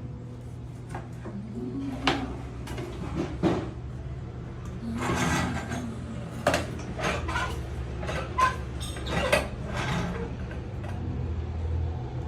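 Manual lever-press fruit juicer being worked by hand: irregular knocks, clacks and scraping as the lever is pressed down on the fruit, over a steady low hum.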